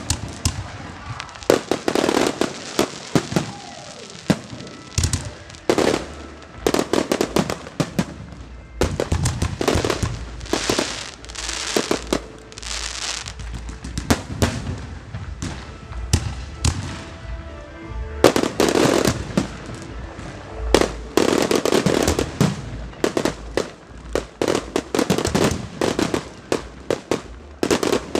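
Aerial fireworks bursting in rapid volleys of bangs and crackling, thinning out for a few seconds in the middle before a dense barrage through the last third.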